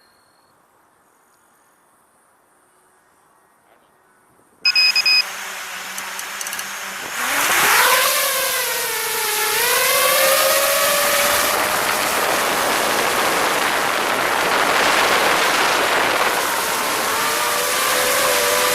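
Near silence, then a short, loud electronic beep about five seconds in. From about seven seconds an FPV drone's electric motors spin up into a steep rising whine and keep running, the pitch wavering up and down as the throttle changes in flight.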